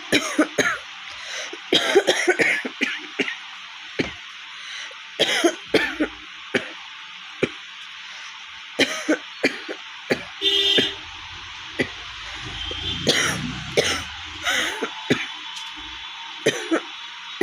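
A woman coughing in repeated short fits with some throat clearing: a real cough from a cold, her throat hoarse and sore. A brief beep sounds about ten seconds in.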